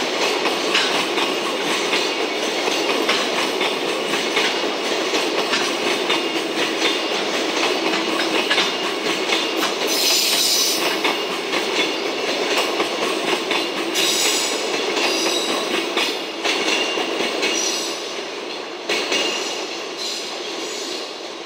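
Container flatcars of a freight train rolling past: steady rumble and clatter of wheels over rail joints, with short high wheel squeals about ten seconds in and again around fourteen to sixteen seconds. The sound falls away near the end as the last wagon passes and recedes.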